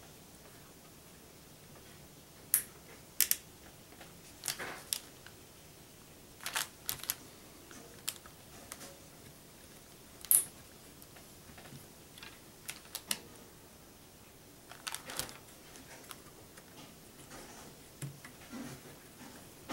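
Sharp plastic clicks and small knocks at irregular intervals, about a dozen of them, from a CPU cooler's push-pin fasteners being pressed, popped and snapped into a motherboard.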